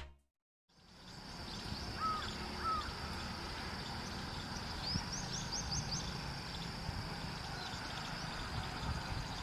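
Trackside outdoor ambience fading in after a brief silence: birds calling, with two short calls about two seconds in and a quick run of high rising chirps around five seconds, over a steady low rumble and a thin steady high tone.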